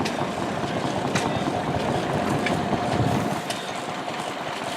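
An engine running steadily, with a steady whine throughout and a few faint clicks.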